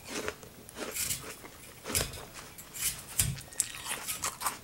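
Crisp apple crunching in short irregular bursts, with light knocks in between.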